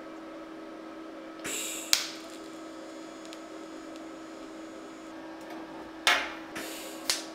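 TIG welder striking short arcs to tack-weld thin steel: two brief hissing bursts, about a second in and about six seconds in, each ending in a sharp click, over a steady hum.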